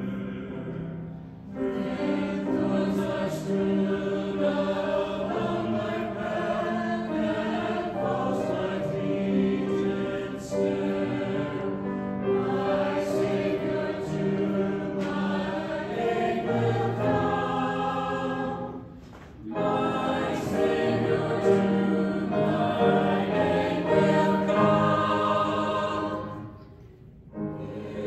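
Small mixed church choir of men's and women's voices singing a hymn arrangement in parts, with brief pauses between phrases.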